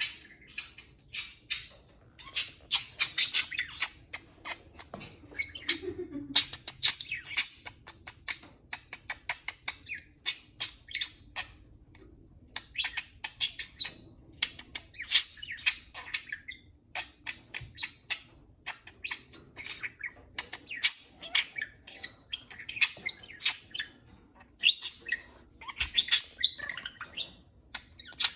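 Pet budgerigars chattering, a fast, irregular run of short high chirps and squawks.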